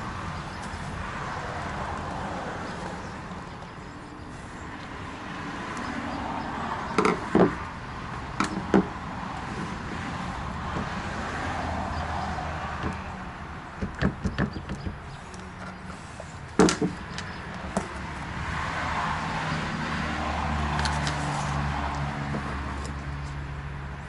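A handful of sharp clicks and clacks as a screwdriver and small metal parts are handled on an RV roof vent fan's lid arm hardware, over steady background noise that swells and fades, with a low hum near the end.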